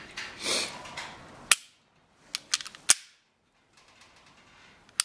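Taurus G2C pistol's stock trigger being pulled and dry-fired: sharp metallic clicks as the trigger breaks, three louder ones with a few lighter clicks between them.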